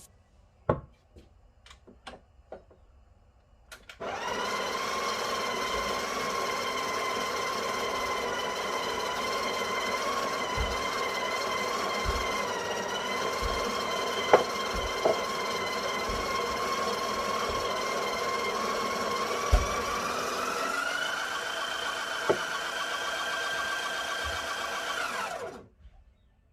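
Breville Barista Express built-in conical burr grinder running, a steady motor whine with a few sharp clicks. It rises in pitch about three-quarters of the way through and cuts off suddenly near the end.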